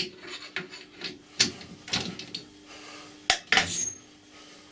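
Metal clicks and knocks as a chuck key works the jaws of a lathe chuck and the threaded workpiece is taken out. The loudest is a sharp clack about three seconds in, followed by a brief rattle.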